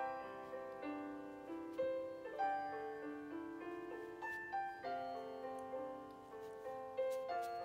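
Background piano music: a slow melody of single held notes, changing about every half second.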